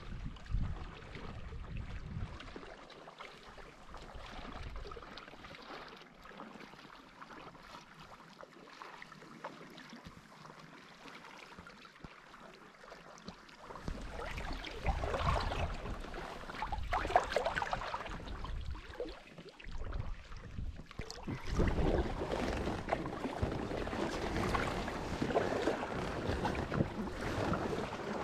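Water lapping and splashing around an inflatable packraft as it is paddled, with wind buffeting the microphone. Quieter at first, then louder and choppier from about halfway, with irregular splashes.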